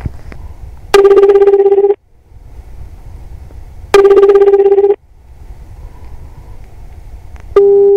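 Japanese telephone ringback tone heard down the line: a low, buzzy tone about a second long, repeating every three seconds, with faint line hiss between the rings and a click at the start. The redialled number is ringing out unanswered.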